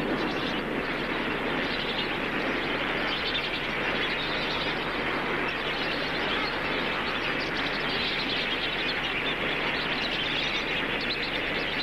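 A huge crowded flock of lesser flamingos calling together in their massed courtship display, countless overlapping calls merging into one steady, loud racket.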